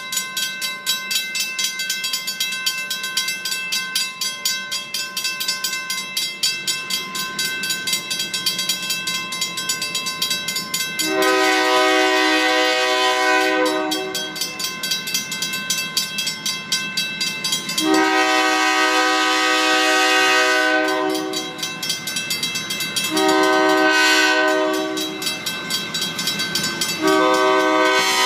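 Diesel locomotive's air horn blowing the grade-crossing signal as the train nears the crossing: two long blasts, one short, then a final long one that is still sounding at the end. Under it the crossing signal's bell rings steadily and without a break.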